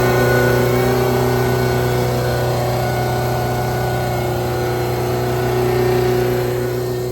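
Ford F550's 6.7 Power Stroke diesel running at a raised idle with its hydraulic system working, a steady engine drone with a whine on top; it eases off slightly near the end.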